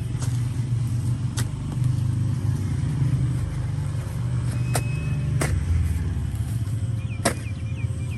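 Long-handled hoe striking and dragging loose soil about five times, at irregular intervals, over a steady low rumble.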